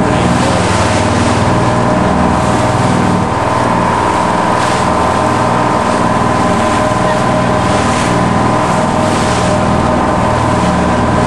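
Charter fishing boat underway: its engine drones steadily at cruising speed, with wind and water rushing past the hull.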